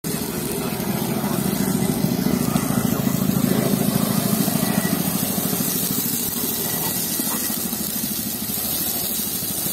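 An engine running steadily with a fast, even throb, loudest a few seconds in.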